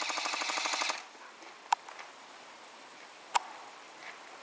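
Airsoft gun firing a rapid full-auto burst that stops about a second in, followed by two single sharp cracks about a second and a half apart.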